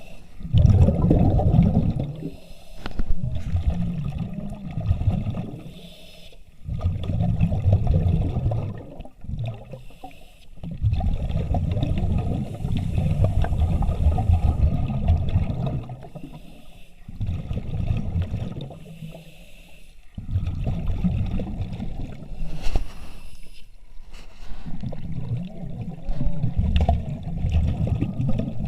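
Surface-supplied diver's breathing and exhaust bubbles: repeated spells of low rushing and bubbling, each a few seconds long, with short pauses between breaths.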